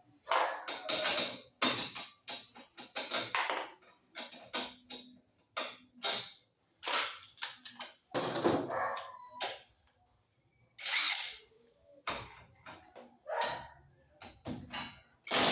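Irregular metal clanks and knocks, a few a second and of varying strength, some with a brief high ring: metal tools and car parts being handled and struck.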